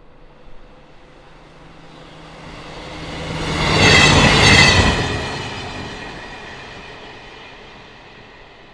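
A train passing by. It builds up, is loudest about four seconds in with a high tone over the rumble, then fades away.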